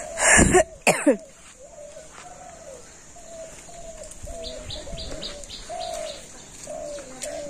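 Birds calling outdoors: one bird repeats short falling notes, roughly two a second, over fainter high chirps from other birds. A brief loud noise comes in the first second.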